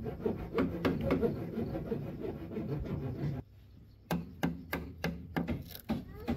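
Knife blade cutting into a green bamboo pole, carving out a notch. First comes a dense run of scraping and shaving strokes, then after a short pause a series of sharp chops into the wood, about three a second.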